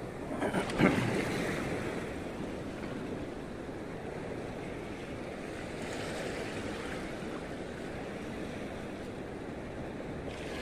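Small waves washing on a shallow shore, with wind on the microphone. About a second in there is a short, louder burst of noise.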